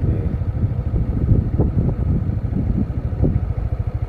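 An engine running steadily with a low, rapidly pulsing rumble.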